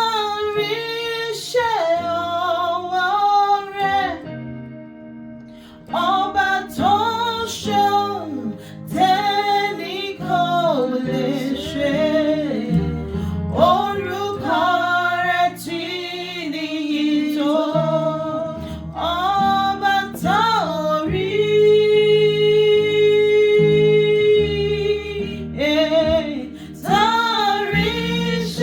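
Worship song: a woman singing a flowing melody over a guitar backing, holding one long note about three-quarters of the way through.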